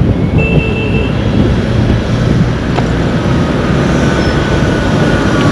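Road traffic on a busy highway: a steady low rumble of vehicles passing.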